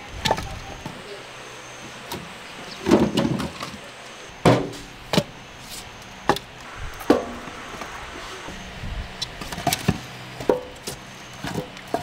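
Split firewood logs knocking and clattering against one another as they are stacked by hand into the firebox of a wood-fired clay stove. The knocks are about ten, sharp and irregularly spaced, with the loudest clatter around three and four and a half seconds in.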